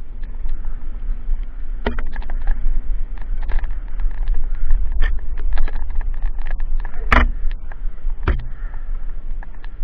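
Mountain bike riding fast down a dirt forest trail. Wind rumbles steadily on the microphone over tyre noise, with frequent rattles and knocks from the bike over bumps; the loudest knocks come about seven seconds in and again just after eight.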